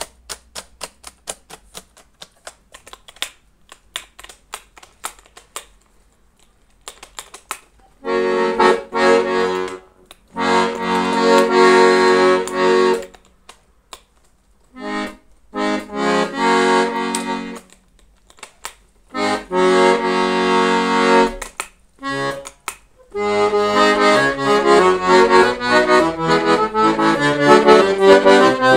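Weltmeister Amigo piano accordion: a run of quiet clicks at first, then four held chords, each cut off after a second or two, and then a tune with moving notes played steadily to the end.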